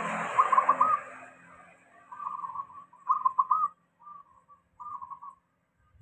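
Zebra dove (perkutut) cooing in a string of short rolling phrases, five or six in all, each under a second long. A passing vehicle's noise fades away during the first second.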